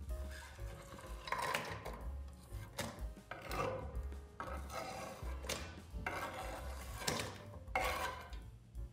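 Repeated scraping strokes of food preparation in a kitchen, roughly one a second, with background music underneath.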